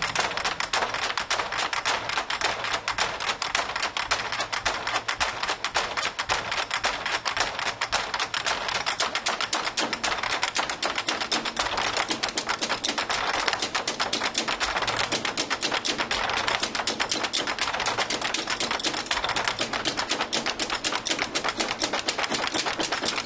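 Chinese drum ensemble playing a fast, unbroken roll of dry, clicking stick strikes with little low boom.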